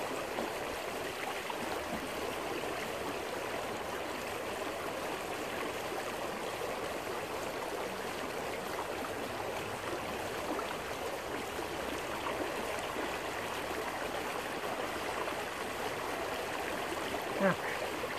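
Small rocky creek running steadily, water rushing over stones and through a gold-panning sluice box set in the current. A short splash near the end.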